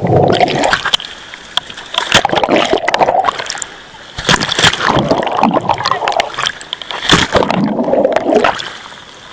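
Water splashing and sloshing in repeated loud bouts every two to three seconds.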